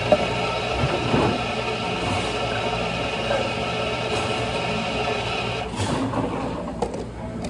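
Steady hum of a running machine with a few fixed whining tones; the higher whine cuts out a little before the end. A light knock about a second in and a few small clicks near the end.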